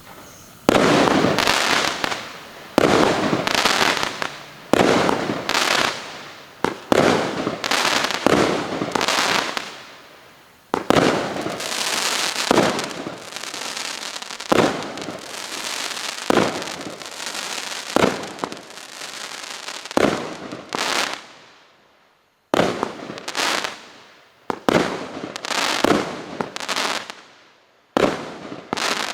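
Colour Crackles CC1513, a Category 4 display firework, firing a series of shots, one every second or two. Each shot bursts into dense crackling that fades over a second or so, and there is a short lull about 22 seconds in.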